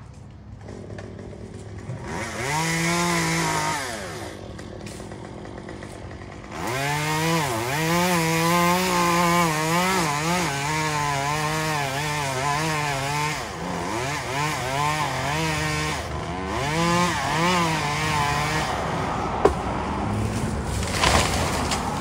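Two-stroke chainsaw running in three bursts of a few seconds each, its pitch dipping and rising as the engine loads and revs. A sharp click sounds near the end.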